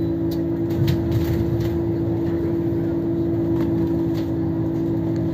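Engine and road noise of a moving vehicle heard from inside it: a steady drone holding one pitch, with a few faint rattles.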